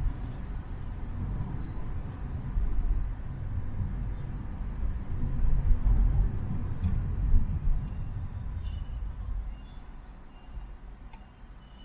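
Car driving on a road: a low rumble of road and engine noise, loudest about halfway through and easing off over the last few seconds, with a few faint clicks.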